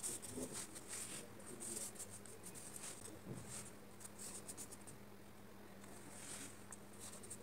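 Fingers rubbing and pressing paper cut-outs flat onto a journal page: faint, scattered paper rustling and scratching.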